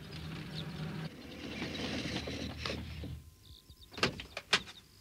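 Small van engine running as the van pulls up, then cutting out about three seconds in. It is followed by two sharp clicks of the van door opening.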